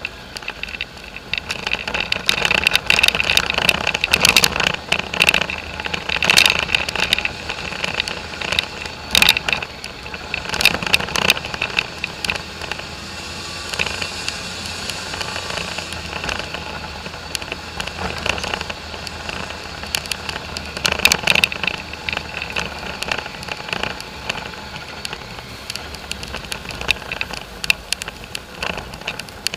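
Polaris four-wheeler riding a rough dirt trail: the engine runs steadily underneath a constant clatter of rattles and sharp knocks as the machine jolts over ruts and stones. The knocking is thickest in the first half and again about two-thirds of the way through.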